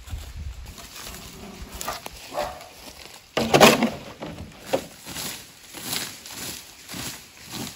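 A plastic leaf rake scraping dry leaves and soil on a forest floor in repeated strokes, a little over one a second in the second half. One loud short sound about three and a half seconds in stands out above the raking.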